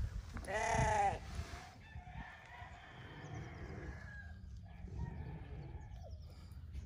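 A single short animal call about half a second in, a pitched cry that rises and then falls over about half a second, over a low steady rumble.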